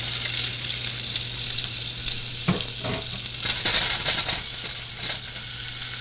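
Diced raw chicken sizzling in hot olive oil in a small saucepan. A few knocks come midway as the pan is moved by its handle on the burner.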